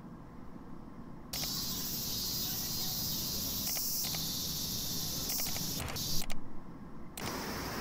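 High, steady insect chorus that starts abruptly about a second in and cuts out and back in near the end, over a low rumble. A few brief knocks come just before the break.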